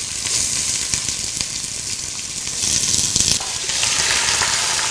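Raw chicken pieces sizzling as they fry in hot oil and caramelized sugar in a pot. The sizzle swells briefly about three seconds in.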